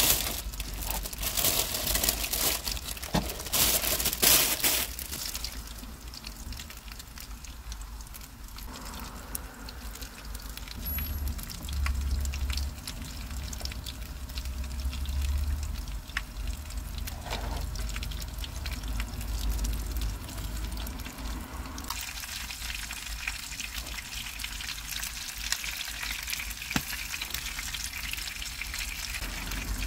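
Coated chicken fillets shallow-frying in a pan of oil, a steady sizzle that grows louder about two-thirds of the way in. Plastic rustling and handling noises in the first few seconds.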